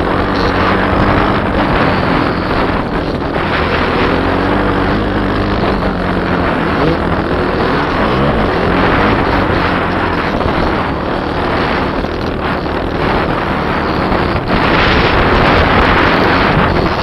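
Kawasaki KLX300R dirt bike's single-cylinder four-stroke engine running while riding, its note rising and falling with the throttle, under heavy wind noise on the microphone.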